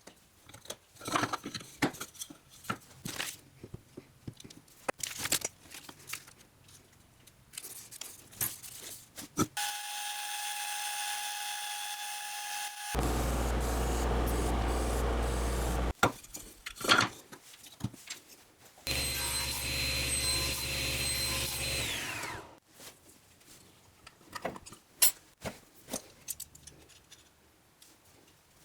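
Workshop tool sounds: scattered taps, knocks and scraping of hand work, broken by stretches of steady power-tool running. One machine runs with a steady whine for a few seconds about ten seconds in, followed by a louder low rush, and another runs for about three seconds around twenty seconds in.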